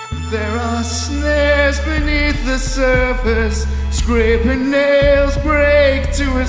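A man singing into a microphone: held, wavering notes that move between pitches, over a low bass underneath.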